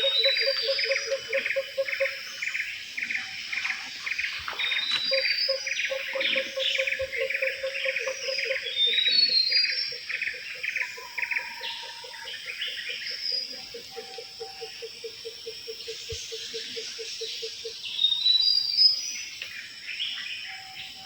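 Tropical forest chorus of birds and insects: one bird repeats a short descending run of high whistled notes every few seconds over a fast pulsing trill, while a low, rapidly pulsing call runs on and stops a few seconds before the end.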